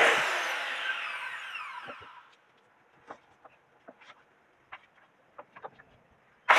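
Corded circular saw finishing a cut through a log, then its blade spinning down with a falling whine that fades over about two seconds. A few faint knocks follow as the log is handled, and the saw bites into the wood again at the very end.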